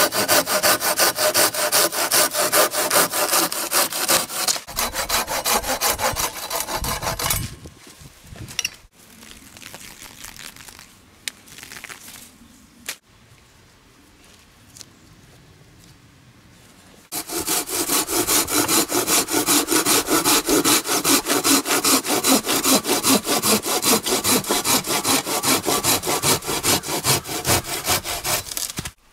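Hand saw cutting through wood in back-and-forth strokes, in two bouts: one at the start lasting about seven seconds, then a pause with a few light knocks, then a longer bout from a little past halfway to the end.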